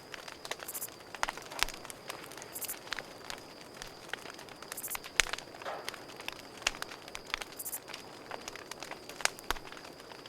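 Campfire crackling, with irregular sharp pops of wood burning, the loudest about a second and a half, five and nine seconds in. Behind it runs a steady high insect trill, with short higher buzzy chirps every two seconds or so.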